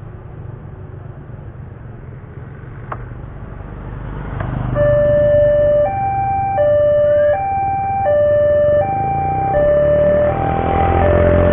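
Railway level crossing's electronic warning alarm starting about five seconds in, alternating between a lower and a higher tone roughly every three-quarters of a second: the signal that a train is approaching and the barrier is coming down. Motorcycle engines get louder as they pass near the end.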